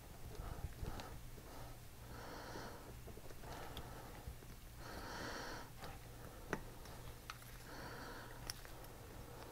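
Faint, slow breathing through the nose close to the microphone, a breath about every three seconds. A few light clicks come from small parts as a brake master cylinder is fitted back together by hand.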